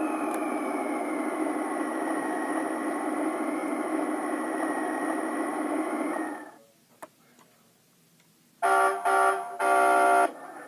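Toy truck's small speaker playing a recorded diesel engine sound, running steadily for about six seconds and then cutting off. After a click, a pitched electronic horn-like tone sounds in three short bursts near the end.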